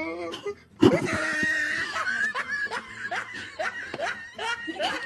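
A person laughing: a loud sudden outburst about a second in, then a run of short repeated laughs.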